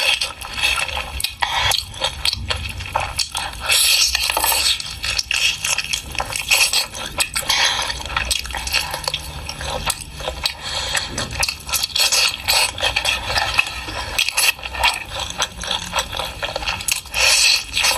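Close-miked mukbang eating of a pork meal: wet chewing and slurping, with many small clicks and scrapes of utensils on dishes.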